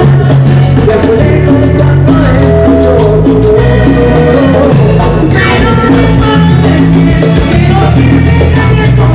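Live cumbia band playing loudly through the stage PA: button accordion, electric bass and percussion (timbales and drums) on a steady dance beat, with a male singer.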